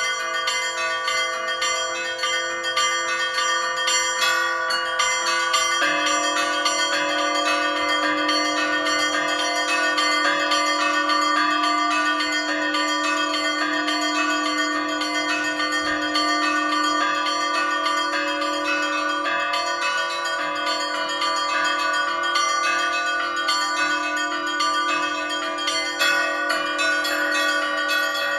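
Orthodox church bells ringing together in one continuous peal, with many overlapping bell tones struck in quick succession over a steady lower bell note. The lowest note drops a little about six seconds in.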